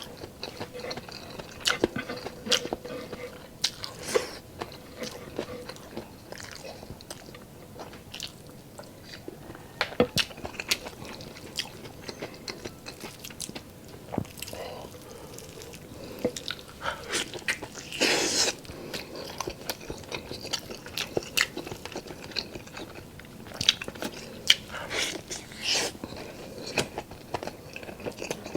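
A person chewing and biting mouthfuls of pork adobo and rice close to the microphone: irregular wet clicks and smacks, with one longer, louder noisy burst about eighteen seconds in.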